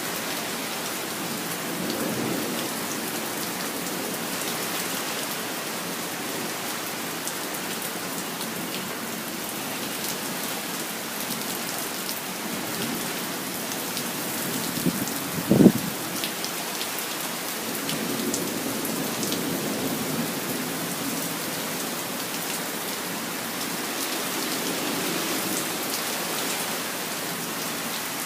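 Steady rain falling, an even hiss with patter, with a few soft low rumbles rising and fading. About halfway through comes one short, sharp thump, the loudest sound.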